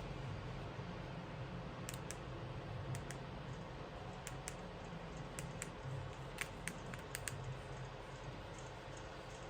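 A run of light, irregular clicks, about fifteen of them between two and seven and a half seconds in, over a steady low hum.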